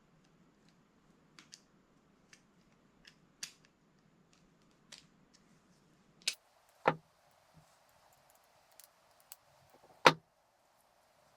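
Small metal parts of a Rekluse EXP clutch disc clicking and tapping as new wedges are fitted into it by hand: scattered light clicks, with three sharper knocks about six, seven and ten seconds in.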